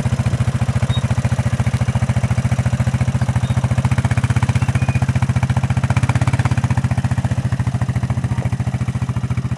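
Honda ATV engine idling steadily, with an even, rapid putter.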